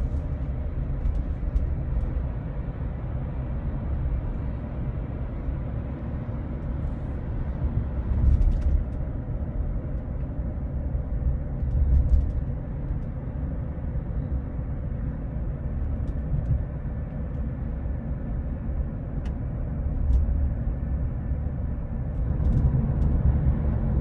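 Road and tyre noise heard inside the cabin of a 2018 Tesla Model 3 cruising at about 40 mph: a steady low rumble that swells briefly a few times, with no whistle or whine in it.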